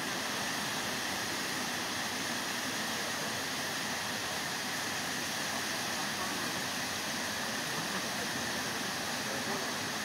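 A waterfall pouring into its plunge pool: a steady, even rush of falling water.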